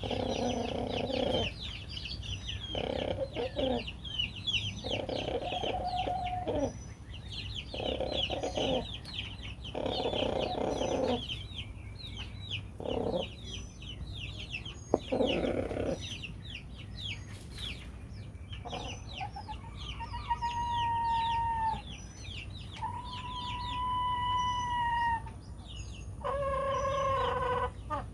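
Rooster snoring: a low, rough purr in short bursts every second or two, which the owner takes as a sign he is happy. Small birds chirp throughout. Later come two long calls held on one steady pitch, then a shorter pitched call near the end.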